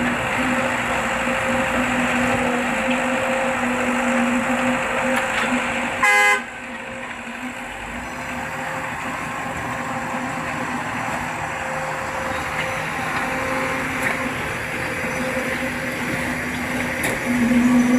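Truck pump running with a steady hum over a rushing mechanical noise. About six seconds in comes one short, loud, horn-like toot, after which the pump runs on a little quieter.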